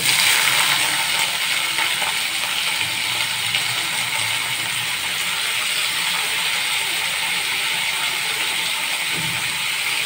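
Water-soaked matchstick potatoes frying in hot oil in a kadai: a loud sizzle the instant they go in, easing slightly into a steady crackling sizzle.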